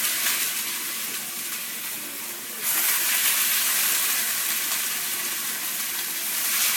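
Chicken breasts sizzling as they brown in oil in a red-hot cast iron skillet, a steady hiss that gets suddenly louder about two and a half seconds in.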